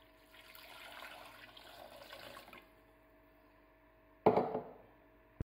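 Water poured from a glass jug into a cooking pot over a beef tongue, splashing steadily for about two seconds. A sharp knock follows a little after four seconds in.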